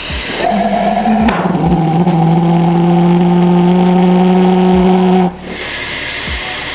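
Homemade carbon-fiber pulsejet engine running with a steady droning buzz that starts about half a second in, drops slightly in pitch a second later, then cuts out suddenly about five seconds in, leaving a hiss of rushing air and flame.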